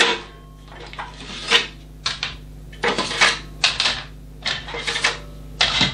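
Plastic drive trays of a Synology DS918+ NAS being pulled out of their bays one after another: a run of short clicks, knocks and sliding scrapes.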